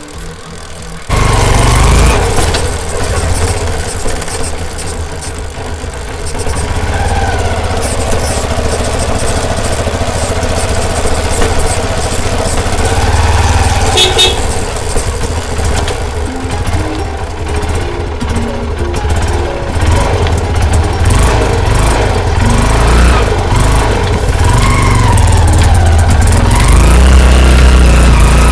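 Hero Karizma R motorcycle's single-cylinder engine running on a test ride, its pitch rising and falling as the bike speeds up and slows, over steady low road and wind rumble. The ride is a check on whether a chassis rattle is gone after the chain guard was refastened. The sound comes in abruptly about a second in.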